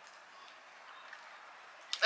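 Faint steady background hiss, with a soft tick about a second in and a sharper click near the end.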